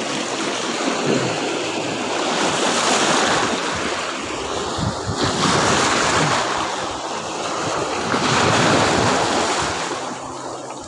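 Sea surf washing in over a pebble beach, swelling and falling back about every three seconds.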